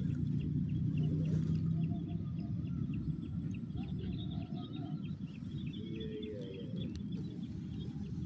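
Small birds chirping in a quick run of short, repeated high notes, about four or five a second, fading near the end, over a steady low rumble.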